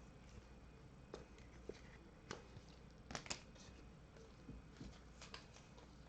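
Near silence broken by faint scattered clicks and short rustles of trading cards being handled, with a small cluster of them a little past halfway.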